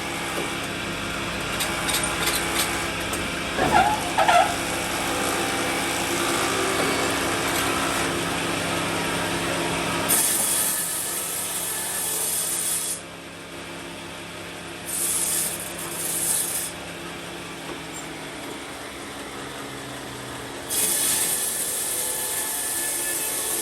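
A power saw cutting wood, its motor running steadily. There are a few sharp knocks about four seconds in, then several stretches of loud, high-pitched cutting noise with quieter gaps between.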